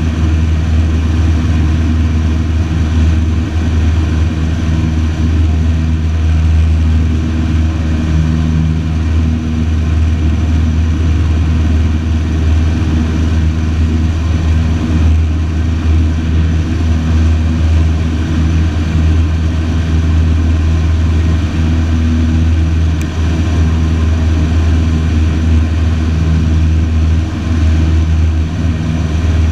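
Light single-engine piston aircraft's engine and propeller droning steadily at constant power, heard from inside the cockpit.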